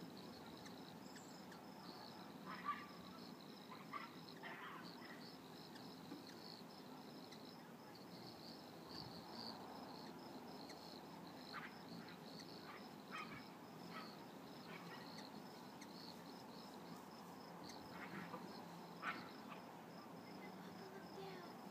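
Crickets chirping in a faint, steady, rapidly pulsing trill. Several brief, sharper calls break in, loudest about three seconds in and near the end.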